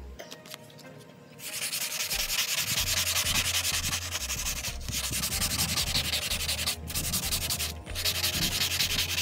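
220-grit sandpaper rubbed by hand over a wet, hazy plastic headlight lens: a rapid scratchy hiss of short back-and-forth sanding strokes, starting about a second and a half in, with a few brief breaks. This is wet-sanding the cloudy surface off the lens to restore it.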